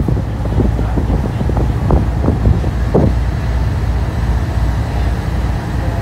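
Wind buffeting the microphone on the deck of a moving ferry, over a steady low rumble from the boat, with gusts coming in uneven bursts during the first half.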